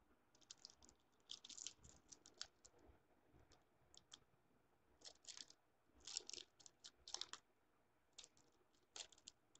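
Faint crinkling and clicking of a small plastic packet of star sequins as fingers handle it, coming in several short irregular clusters.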